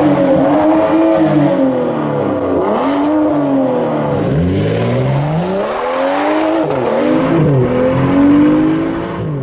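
BMW M3 E92's 4.0-litre V8 with a Fabspeed exhaust (X-pipe secondary cat bypass, sport cats), driven hard. The engine note climbs and drops several times as it revs up and down.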